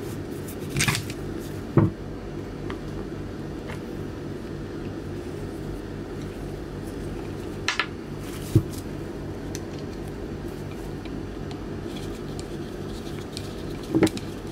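Small metal parts and tools clicking and clinking as a new brush is fitted into an autopilot's electric drive motor, over a steady low hum. Near the end a short burst from a cordless electric screwdriver starting to drive a screw into the motor's end cap.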